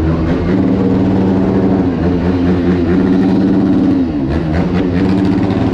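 A vehicle engine running steadily, its pitch dipping and rising again about four seconds in.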